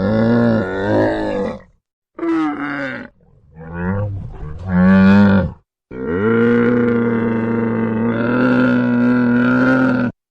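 A large animal's deep, drawn-out calls: a few shorter calls, then one long steady call lasting about four seconds that cuts off suddenly near the end.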